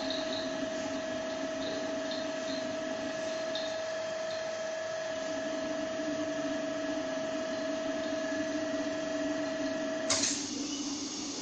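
Vacuum pump and LCD laminating machine running steadily under vacuum, a constant whine over a low hum. About ten seconds in the whine cuts off and a sudden rush of hissing air follows.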